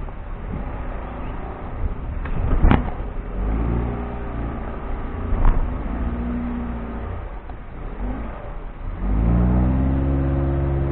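A vehicle's engine revving up under load in two pulls, the second near the end the longest and loudest, over a steady low rumble. A sharp knock comes a few seconds in and another about halfway.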